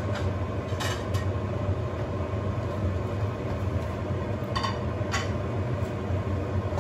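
Steady low background rumble, with a few light taps about one second in and twice about five seconds in.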